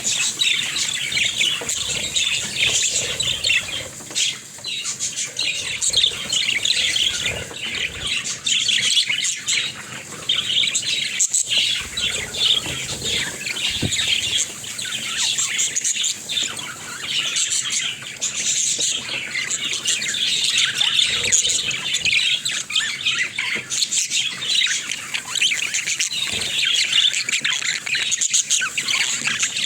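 A flock of budgerigars chattering, with many rapid overlapping chirps, warbles and squawks.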